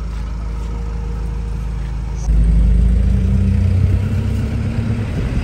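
A vehicle's engine running with a low rumble. About two seconds in it suddenly gets much louder, as if it has picked up speed.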